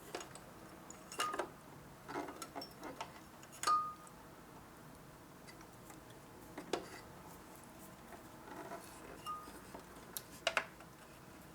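Faint, scattered light clicks and taps from handling a Singer X5004-HD serger while threading its looper thread guide, with a sharper click near the end as the thread seats in the guide.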